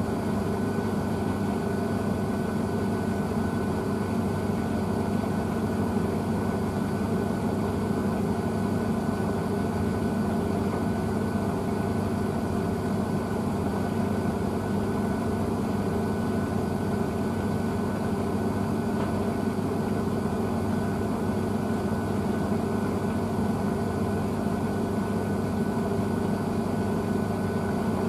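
Blomberg WNF9448 front-loading washing machine in its final high-speed spin, the drum turning at a steady speed with a constant motor whine and hum.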